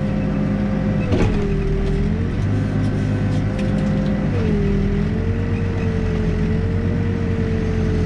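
Backhoe's diesel engine running with a steady whine over it; the engine note and whine dip briefly twice, about a second in and again about four seconds in. A single sharp knock sounds about a second in.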